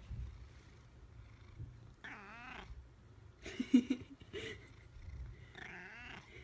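Domestic cat purring between loud, wavering meows: one about two seconds in, a short sharp cry a second or so later that is the loudest sound, and another wavering meow near the end.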